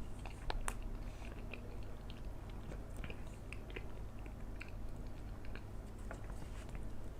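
A person chewing a mouthful of banana: soft, wet mouth clicks and smacks scattered irregularly over a steady low background hum.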